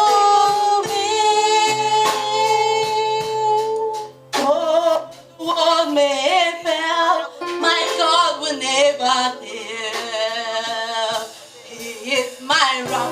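Gospel worship song with instrumental accompaniment and a steady bass line. A singer holds a long note for about four seconds, then sings a wavering, ornamented line with vibrato.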